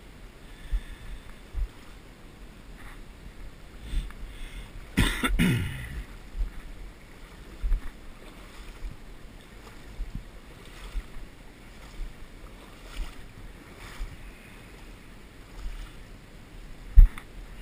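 Wading through shallow river water: sloshing with low thumps about once a second, a louder burst of noise about five seconds in, and a sharp knock near the end.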